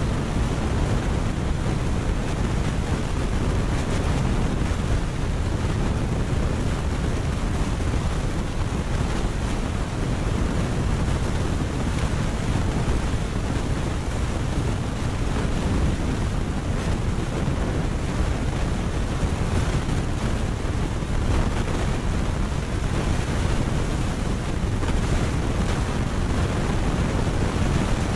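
Steady wind buffeting the microphone, a constant low rumble with a hiss above it.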